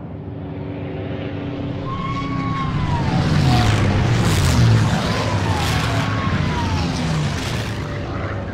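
An aircraft passing by: the noise swells to its loudest about four and a half seconds in, its pitch drops as it goes past, and it slowly fades.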